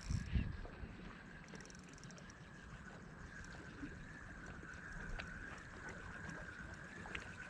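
Sea water washing against a quay, with a short run of fast, faint ticking from a spinning reel being wound during a lure retrieve, over a faint steady high tone.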